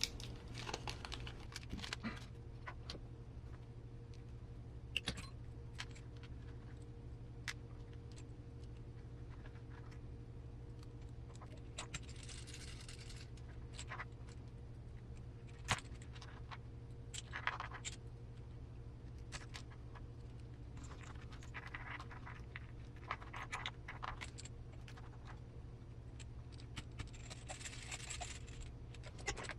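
Hand-work noises: scattered small clicks and taps with a few short rustles and scrapes as electrical wires are pressed into plastic cable retainers, over a faint steady hum.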